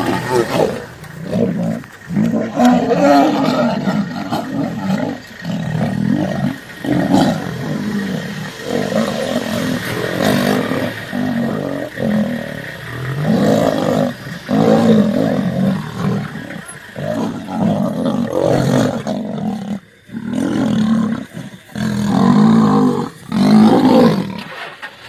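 Male lions fighting, roaring and snarling in a long run of loud, rough bursts about a second apart, with a brief pause about twenty seconds in.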